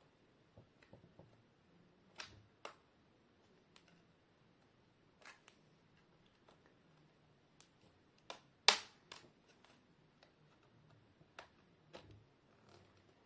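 Scattered plastic clicks and snaps of a laptop screen bezel's clips releasing as it is pried away from the LCD panel, with one sharp, loud snap a little past halfway. Each click is a clip letting go.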